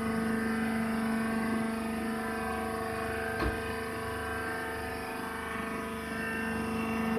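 Hydraulic wood-shavings baler's power unit, its electric motor and pump running with a steady, even hum. A single light click sounds a little past the middle.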